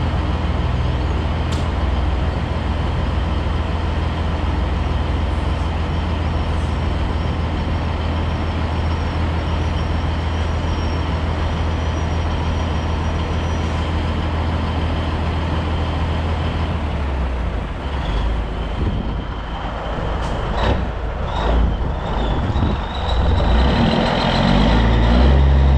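Cabover Peterbilt 362 semi's diesel engine idling steadily. After about 17 seconds it pulls away, the engine note rising as it moves off, with a few short knocks and hisses along the way.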